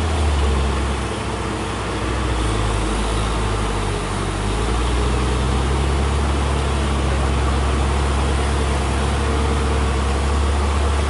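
Heavy truck engine running with a steady low drone, over continuous road noise.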